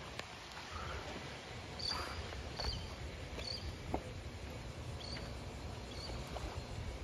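Wind buffeting the microphone over rippling water by the dock, a steady low rumble, with about five short high chirps spread through the middle and later part.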